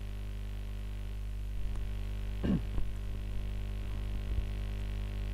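Steady electrical mains hum, with a short falling squeak about two and a half seconds in and a few faint ticks.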